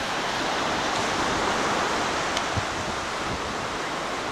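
Small surf waves breaking and washing onto a sandy beach: a steady rush that swells a little in the middle, with one small click about two and a half seconds in.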